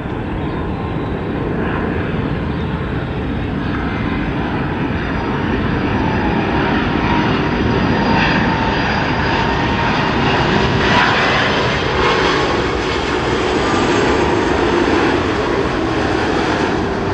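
Airliner engines running loud and close, a steady rush that slowly grows and peaks about two-thirds of the way through, with a faint engine whine in it.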